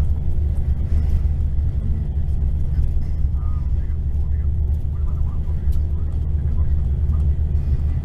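Mercedes-Benz diesel coach engine droning steadily at cruising speed, heard from inside the passenger cabin together with the road rumble of the moving bus. Faint voices come and go in the background.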